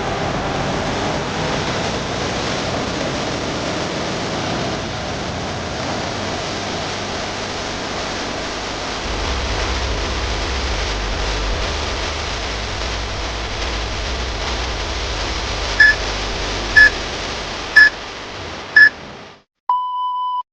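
A steady hiss like rushing air, with a low rumble joining about halfway through. Near the end come four short electronic beeps about a second apart, then one longer, lower beep, in the pattern of a countdown timer.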